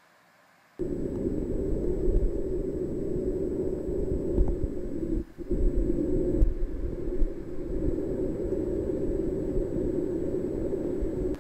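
A loud, dense, low rumbling noise that cuts in suddenly about a second in, drops out briefly near the middle and stops abruptly at the end.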